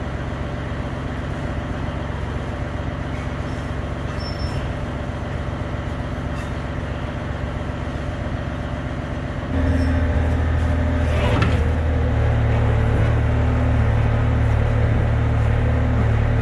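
Yanmar mini excavator's diesel engine running steadily, then stepping up louder and deeper about two thirds of the way through as the engine is put under more load or revved up, with a brief scrape or clank shortly after.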